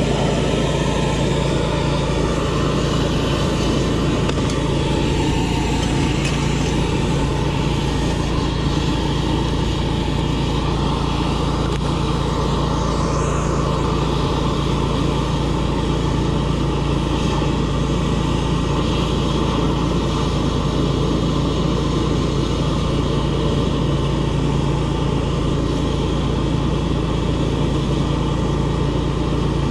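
High-pressure drain jetter's engine and pump running steadily under load while jetting a sewer line: a constant drone with a steady low hum.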